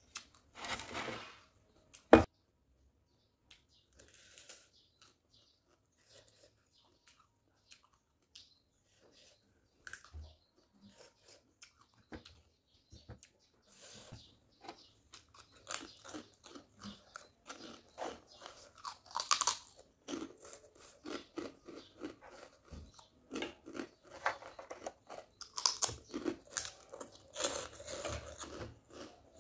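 Close-up eating sounds: a person chewing and crunching food, sparse at first and dense and crackly from about halfway on. A single sharp click about two seconds in is the loudest sound.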